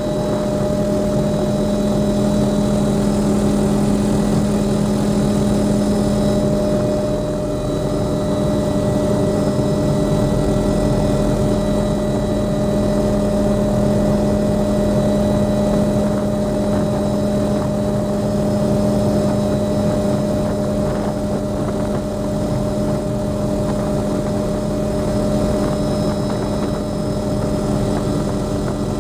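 Helicopter in flight: the steady drone of its engine and rotor, with a constant hum of several fixed tones over a low rumble.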